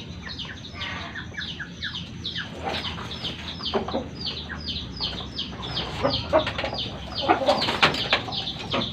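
Chickens calling: a steady run of quick, high peeps, each falling in pitch, several a second, mixed with lower clucks that grow louder after about six seconds.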